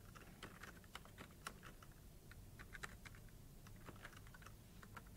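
Faint typing on a computer keyboard: light, irregular keystrokes.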